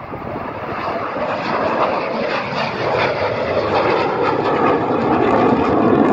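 Military jet fighter climbing out after take-off, its jet engine noise growing steadily louder as it passes.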